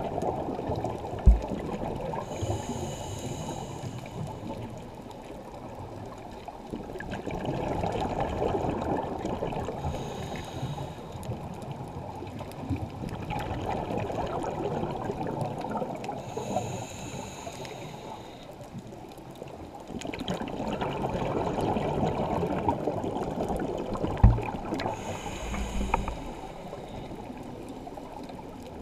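A scuba regulator breathing underwater, in about four slow cycles: each a short hissing inhale, then a longer gurgling rush of exhaled bubbles. Two sharp knocks stand out, about a second in and near the end.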